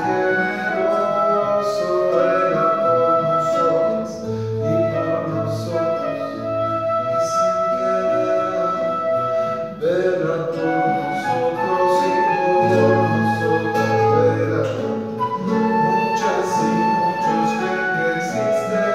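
Transverse flute and nylon-string classical guitar playing a song together, with a man's voice singing over them.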